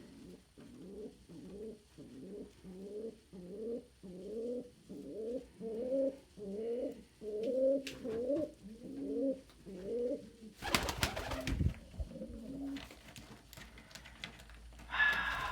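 Domestic pigeon cooing in a steady run of short rising coos, about two a second. About ten seconds in the cooing stops and a loud, sudden burst of noise lasting about a second takes over.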